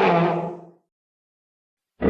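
The end of an infected Argentinosaurus creature call (a sound effect): a deep pitched call with several tones fades out within the first second, then dead silence.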